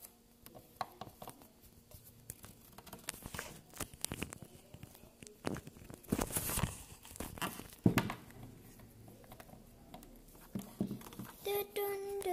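Handling noise: fingers and a small plastic toy rubbing and knocking against a phone's microphone, a run of rustles, scrapes and clicks that is loudest about six to eight seconds in. A child starts humming near the end.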